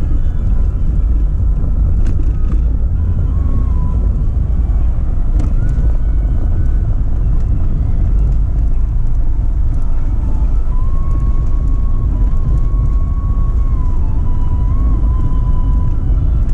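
Steady low road and engine rumble inside a moving car's cabin, with a few light knocks and rattles.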